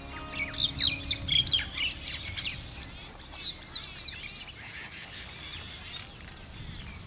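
Several birds chirping and calling in quick, overlapping chirps, thickest in the first two seconds and thinning out after.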